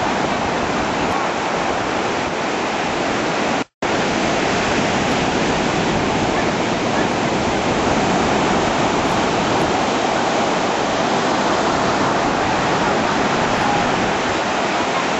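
Storm surf on the sea, a continuous loud roar of breaking waves. It cuts out for a split second a little under four seconds in, then carries on.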